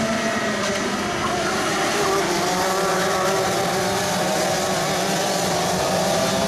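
A pack of racing karts' two-stroke engines running at race speed, several engine notes overlapping and rising and falling in pitch.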